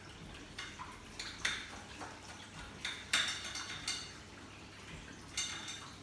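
A metal utensil scraping and clinking against a plate in a few short strokes, the loudest about halfway through, as cut pieces of potato kuku are lifted and moved.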